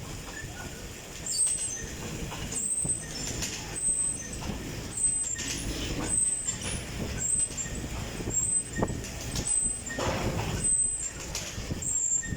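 Stationary exercise bike with a fan being pedalled: a whooshing rush of air that surges about once a second, stroke by stroke, picking up about a second in.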